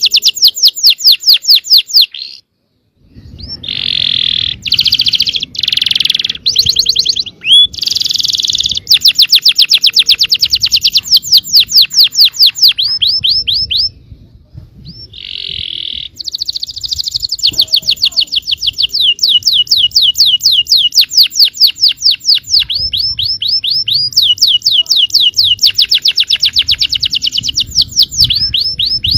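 Yellow canary singing: long, fast trills of rapidly repeated sweeping notes, broken by a few harsher buzzy phrases and two short pauses, about two and a half seconds in and near the middle.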